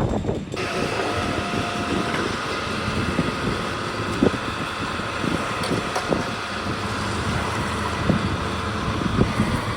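Engine-driven machinery running steadily, with scattered short knocks and clatter; it comes in abruptly about half a second in.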